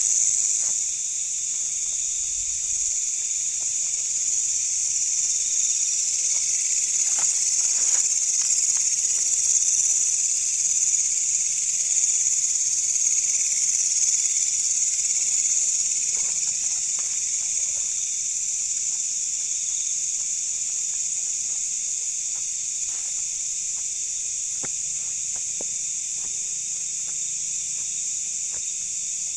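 Dense night-time insect chorus in tropical forest: a steady, high-pitched shrill drone, with a few faint scattered clicks.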